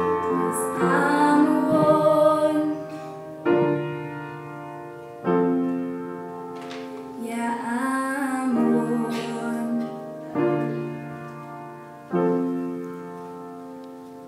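A young woman singing to an upright piano: one sung phrase at the start and another in the middle. Between them, held piano chords are struck every couple of seconds and left to ring, and the last one fades away near the end.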